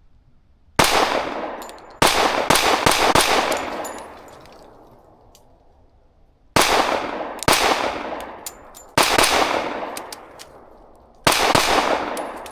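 Ported Girsan Witness 2311 Brat pistol firing .45 ACP rounds, about six loud shots at uneven spacing with a quick cluster near the start. Each shot has a long echoing tail.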